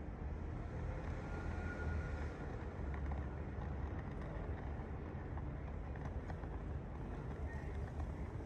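Outdoor garden ambience: a steady low rumble of wind buffeting the microphone, with a faint hiss of leaves stirring in the breeze.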